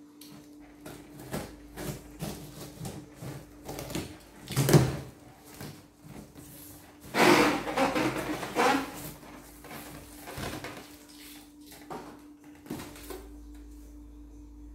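Plastic wrapping and cardboard packing being handled and pulled out of a shipping box: irregular rustling with a few knocks, the loudest about five seconds in and a longer rustle from about seven to nine seconds in. A steady low hum runs underneath.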